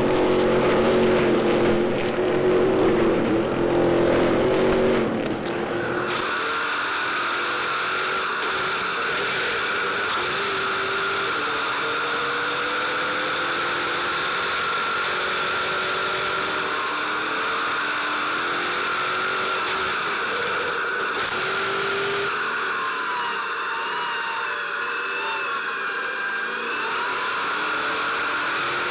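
Stadium Super Truck racing engines running hard for the first few seconds. Then, about six seconds in, a single truck's engine is heard from inside the cab: a steady high whine whose pitch rises and falls gently with the throttle.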